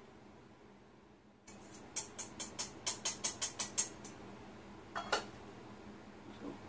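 Eggs being beaten in a small bowl, the utensil clicking against the bowl about five times a second for some two seconds, then a knock as the bowl is set down on the table.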